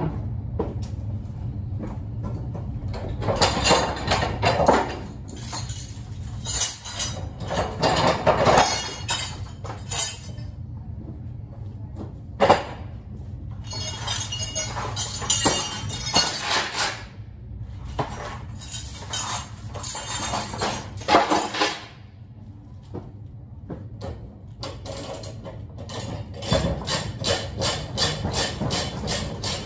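Load chains clinking and rattling in repeated bursts as they are unhooked from the coils on a flatbed trailer, with one sharp metal knock about halfway and a quick run of clinks near the end. A low steady hum underneath drops away about two-thirds through.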